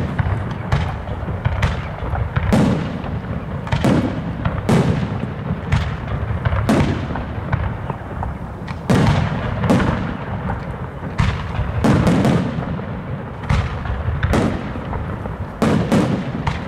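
Aerial fireworks shells bursting in quick succession: a run of sharp bangs about one a second, each trailing off, over a continuous low rumble of the display.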